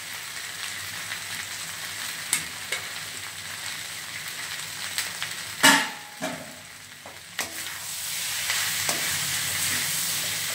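Onions, capsicum and fried cauliflower sizzling in a stainless steel kadai, with a slotted steel ladle clicking and scraping against the pan. A loud metallic clank comes a little past halfway, and near the end the sizzle grows louder as the food is tossed and stirred.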